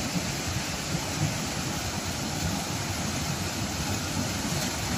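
Water rushing steadily as a strong flow pours into a concrete channel, churning and splashing at the surface.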